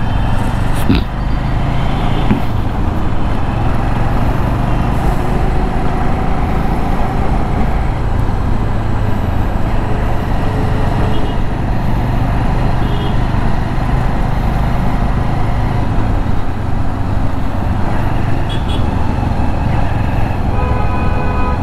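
Bajaj Avenger 220's single-cylinder engine running steadily while riding in traffic, mixed with the rush of road noise and passing vehicles.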